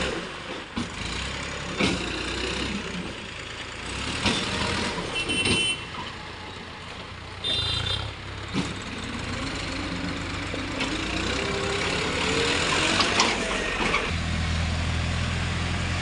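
Diesel engines of earth-moving machinery running steadily, with scattered knocks and clatters from the work. Two short high beeps sound about five and eight seconds in, and the low engine note grows louder near the end.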